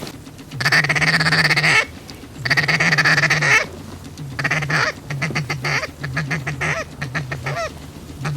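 Hand-held waterfowl call blown close by: two long drawn-out notes, then a run of short, choppy notes about three or four a second.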